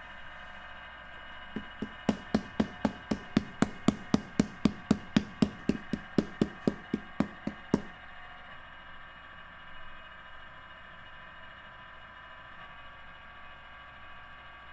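Wooden paddle beating the clay wall of a large onggi jar, a quick, even run of about two dozen knocks at roughly four a second that stops about eight seconds in.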